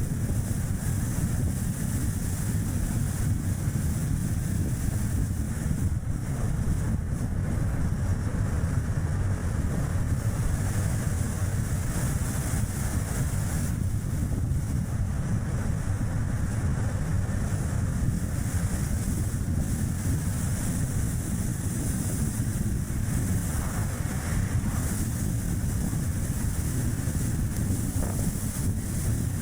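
Strong gusty wind rumbling on the camera's microphone, mixed with the steady road and tyre noise of a Chevrolet Spark light car driving along.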